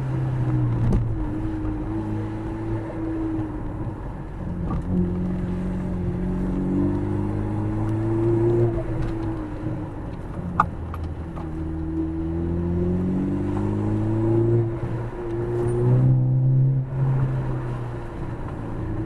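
Ford Focus ST's turbocharged EcoBoost four-cylinder engine being driven hard, its pitch rising and falling again and again as it accelerates and lifts between turns.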